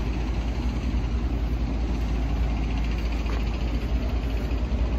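Steady outdoor street noise, a low continuous rumble like traffic passing.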